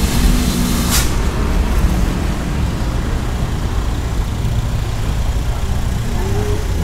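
Steady low outdoor rumble, with a short sharp click about a second in.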